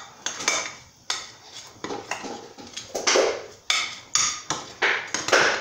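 A utensil clinking and scraping against a bowl while stirring a thick breadcrumb-and-cornstarch paste, in uneven strokes about one or two a second. The loudest scrapes come about three seconds in and near the end.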